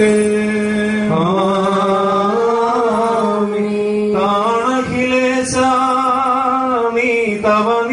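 Men's voices chanting a liturgical hymn in long, held notes, with a steady lower note sustained beneath the moving melody.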